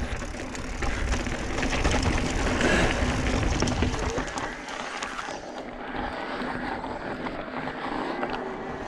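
Mountain bike riding over slickrock sandstone: tyres rolling on the rock and wind rushing over the camera microphone. It is loudest about two to three seconds in and eases after about four seconds.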